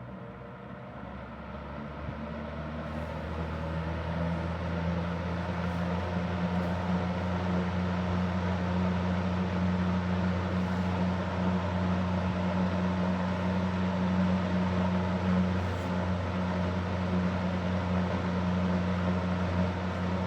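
Super Electric 14-inch box fan (model 1475) running on medium speed: a low motor hum under the rush of air. It grows louder over the first few seconds as the fan comes up to speed, then holds steady.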